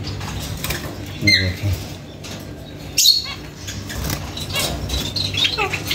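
Caged birds fluttering behind wire mesh, with a short chirp about a second in and a sharper flutter about three seconds in.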